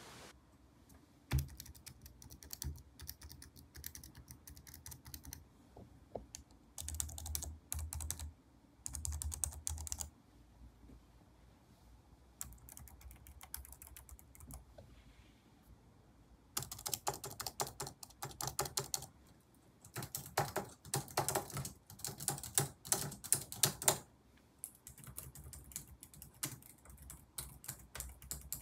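Typing on compact wireless keyboards tried one after another, in short runs of quick key clicks with pauses between, the loudest runs in the second half. Among them is a round-keyed Logitech K380, whose keys are really quiet.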